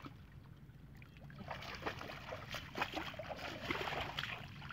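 Wading footsteps splashing and sloshing through shallow floodwater, picking up about a second and a half in into a run of irregular splashes.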